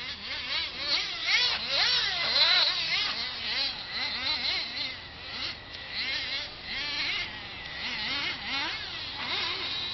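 Several nitro RC stadium trucks' small two-stroke glow engines buzzing at high pitch, overlapping one another, each rising and falling in pitch as the trucks accelerate and lift off around the track.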